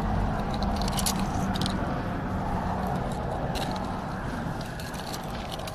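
Steady road-traffic rumble, with a few faint clicks from metal pliers working a hook out of a fish's mouth.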